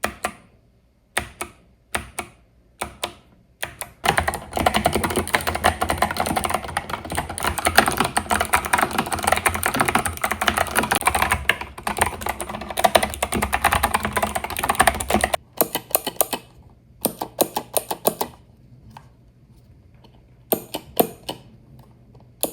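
8BitDo Retro Mechanical Keyboard, full 108-key version, being typed on as a sound test: a few separate keystrokes, then about eleven seconds of fast continuous typing starting about four seconds in, then short scattered bursts of key clicks.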